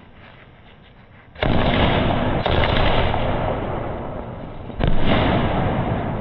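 Skyshot aerial fireworks bursting overhead: a sudden loud bang about a second and a half in, another about a second later, and a third near five seconds. Each one trails off in a long rumble.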